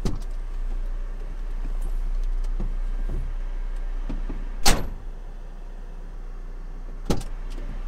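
Three sharp metallic clanks, the loudest about halfway through with a brief ring, over a steady low rumble.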